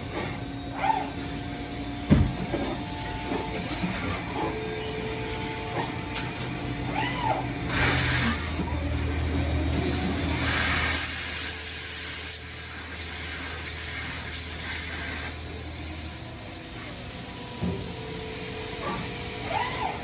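DMG Mori NRX2000 CNC lathe running, with steady machine tones and bursts of hissing spray. A low hum comes in for several seconds mid-way, and there are scattered clicks and knocks, the loudest about two seconds in.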